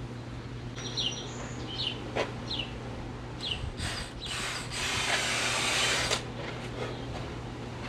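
Power drill boring a hole for a nitrous injection nozzle, a steady hissing grind of about two seconds in the second half. Birds chirp in short falling calls before it.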